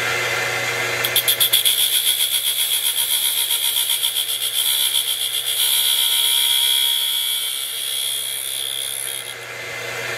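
Acra tool and cutter grinder's motor running with a high whine as its abrasive wheel grinds the end of a small steel 4-40 screw down to finished length. The grinding pulses rapidly at first, then runs steadier, and stops about nine seconds in while the motor keeps running.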